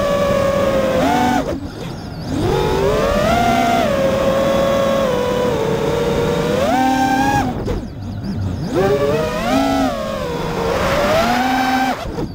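FPV quadcopter's four Emax RS2205 2300KV brushless motors and tri-blade props whining, heard from on board, the pitch rising and falling with throttle. Three times, about two seconds in, about eight seconds in and near the end, the whine drops away briefly as the throttle is chopped and then climbs back, the last time during a roll.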